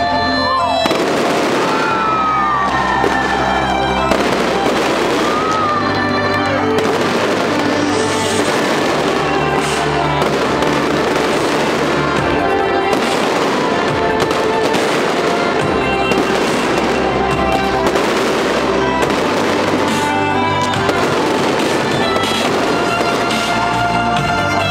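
Fireworks going off in a dense run of bangs and crackling, over loud music with held notes.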